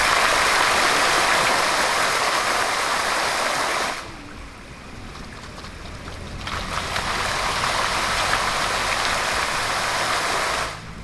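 Water jets of a programmed fountain splashing onto the paved island and pool, a steady rushing splash. It drops away sharply about four seconds in as the jets shrink, swells back up a couple of seconds later, and falls off again just before the end.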